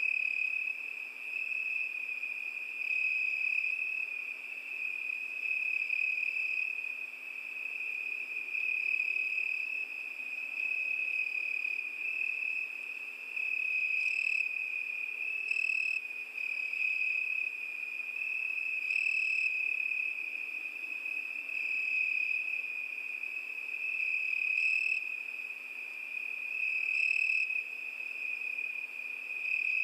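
Crickets chirping in a continuous high trill that gently swells and eases in loudness.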